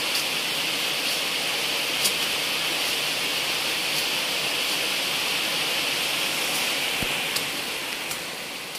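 Steady rain hiss, with a few brief sharp ticks scattered through it, fading out near the end.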